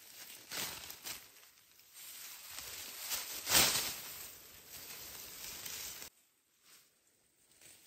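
Rustling and swishing of leafy vegetation being handled, in irregular strokes with one louder swish about halfway through; it cuts off suddenly about six seconds in.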